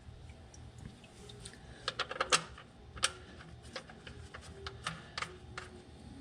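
Irregular light clicks and taps of tools and parts being handled under a vehicle during an oil change, with a quick cluster of clicks about two seconds in.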